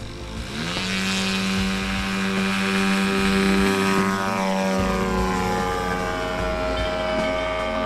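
Model tow plane's propeller engine running up to full power for an aerotow takeoff, getting louder about a second in, its pitch sinking a little as it goes past.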